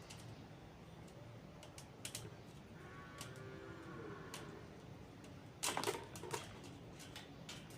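Scattered small clicks and taps of hand tools working on a table fan's metal parts as nuts on the motor coil cover are undone. The loudest cluster of clicks comes about six seconds in.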